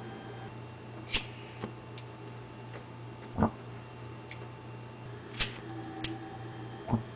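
A handful of sharp clicks at irregular intervals, a second or two apart, one of them a duller knock, over a steady low hum.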